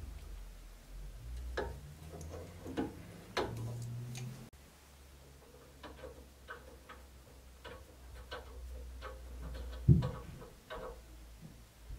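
Scattered small metallic clicks and ticks of pliers and fingers working a rusted metal pin on an old cleaver's handle, with one low thump near the end.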